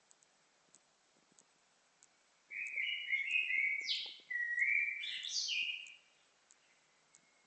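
A songbird singing two short phrases of clear whistled notes, each ending in a quick rising sweep, with a brief break between them. A faint regular ticking runs underneath.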